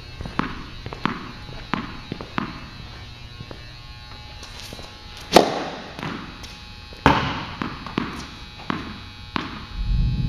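Tennis balls bouncing and being struck on an indoor court, each impact sharp with an echoing tail: a run of evenly spaced bounces, then two much louder hits about five and seven seconds in, then more bounces as a serve is prepared. A low rumble starts near the end.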